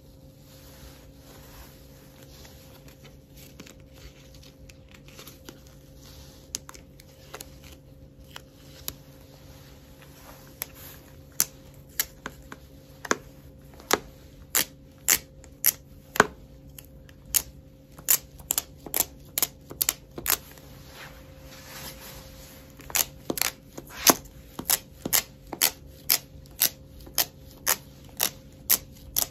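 Sharp clicking taps from a sticky dust-absorber sticker being dabbed against a glass screen protector. Soft and sparse at first, then louder at about one or two a second from about ten seconds in, over a faint steady hum.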